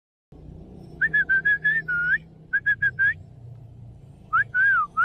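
A person whistling in short, high notes: a quick run of chirps about a second in, three more just before the middle, and a couple of rising-and-falling swoops near the end, over a low steady rumble.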